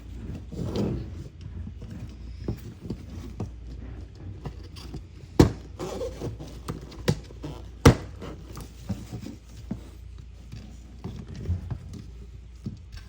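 Plastic parts of a Dyson V10 direct drive cleaner head handled and pushed together, with scattered light knocks and two sharp clicks, about five and eight seconds in, as a part is pressed into place.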